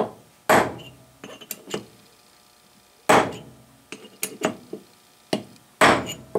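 Brass hammer striking a steel transfer punch, marking bolt-hole positions through a taper lock bushing onto a metal hub: three sharp, ringing blows about two and a half seconds apart, with lighter metal clinks between them as the punch is moved from hole to hole.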